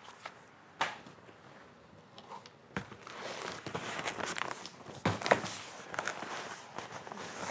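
Cardboard and paper wrapping of a rolled leather shipment being handled and pulled open by hand: a few sharp knocks, then rustling, crinkling and tearing from about three seconds in.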